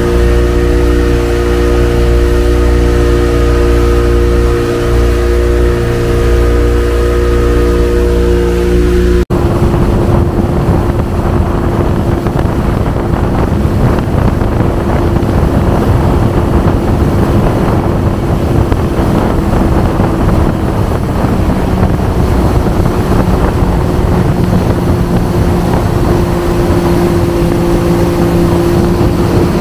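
Boat engine running steadily at speed. About nine seconds in the sound cuts abruptly to a noisier stretch where the engine's hum sits under a rush of wind and water.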